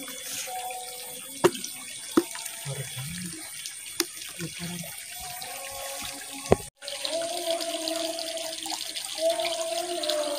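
Water pouring from a plastic pipe into a fish pond, a steady running and splashing, with a few sharp clicks of handling in the first part. After a brief break about two-thirds through, the running water is louder.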